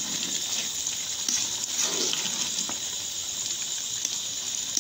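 Basmati rice and chicken stock boiling in a steel pot: a steady bubbling with scattered small pops.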